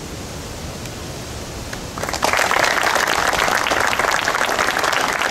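Audience applauding, breaking out suddenly about two seconds in and holding steady; before it only a low background rumble.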